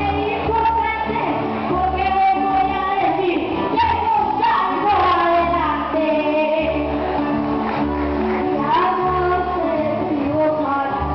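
A boy singing trova verses into a microphone, backed by strummed acoustic guitars keeping a steady rhythm.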